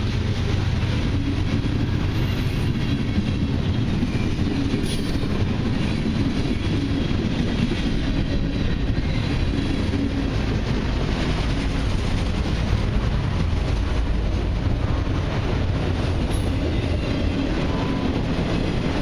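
Freight cars of a long mixed train rolling past at steady speed: tank cars, a centre-beam lumber flat and autoracks. Their steel wheels make a continuous rumble on the rails, with clickety-clack over the rail joints.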